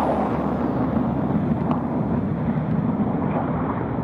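Jet noise of the BAC TSR2's twin Bristol Siddeley Olympus turbojets as the aircraft climbs away after take-off: a steady noise that slowly fades as it recedes.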